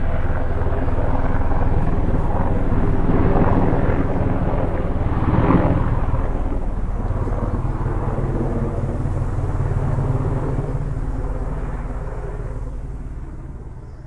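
Helicopter flying by, with its rotor beating rapidly under the engine noise; it is loudest about five seconds in and fades away near the end.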